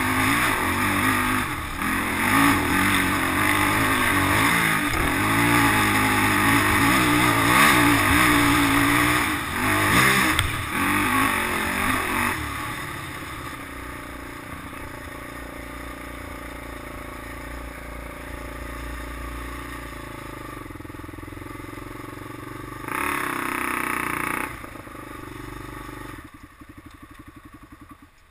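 Polaris Outlaw 500 quad's engine revving hard and changing pitch while riding a dirt trail, then dropping to a steadier, quieter running about twelve seconds in. There is a short rev a little before the end, after which it goes much quieter.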